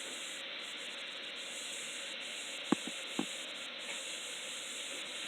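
Steady low hiss of background noise, with two faint soft clicks about two and a half and three seconds in.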